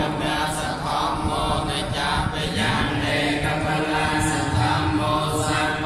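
Theravada Buddhist monks chanting together in unison on a steady, held pitch, one voice amplified through a microphone.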